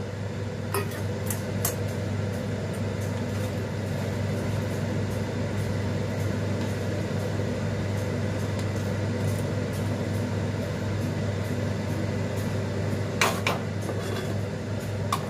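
Steady low mechanical hum with hiss from a running kitchen appliance. A few light clicks come in the first two seconds, and a sharp double click of kitchenware comes about 13 seconds in.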